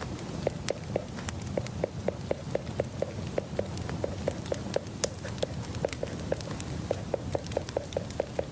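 Quick, irregular light knocks or taps, about four to five a second, each with a short hollow pitch, over a steady low background hum.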